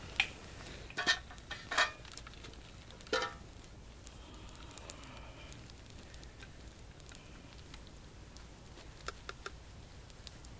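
Small campfire of pine straw and dry sticks crackling, with a few sharp pops in the first three seconds and fainter, scattered crackles after.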